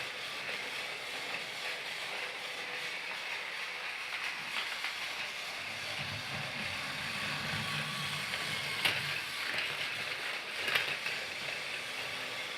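Battery-powered Thomas the Tank Engine toy train running: a steady whir of its small motor and gears, with a low rumble for a couple of seconds about halfway through and a few sharp clicks later on.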